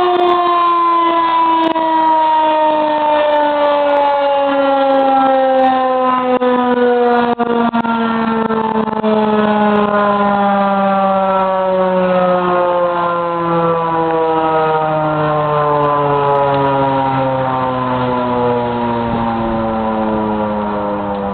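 Federal Signal Model 2001 rotating electromechanical siren sounding a single steady tone with several overtones, its pitch falling slowly and steadily throughout as the rotor coasts down after a quick wind-up. The sound breaks up briefly about seven seconds in, which the uploader puts down to wind.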